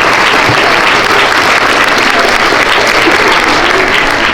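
An audience of schoolchildren clapping hands together in steady, dense applause.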